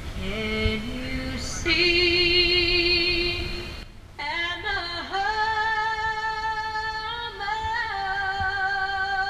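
A woman singing solo, slowly, holding long notes with vibrato. The singing breaks off briefly about four seconds in, then resumes.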